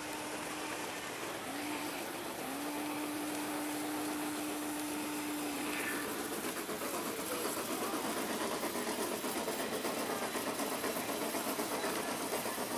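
Garden-scale model train sounding its whistle: a steady-pitched blast, a short one, then a longer one of about three seconds. After that the train runs with an even rhythmic beat about three times a second.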